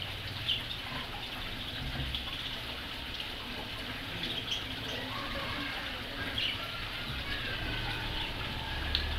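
Outdoor ambience: a steady rushing background noise with a few faint, short bird chirps scattered through it.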